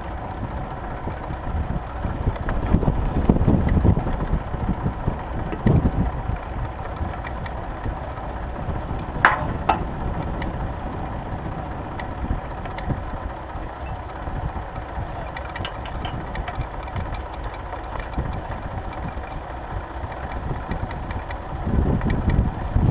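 Tractor engine running steadily under load while pulling a plough, with a few louder low surges and two sharp clicks about nine seconds in.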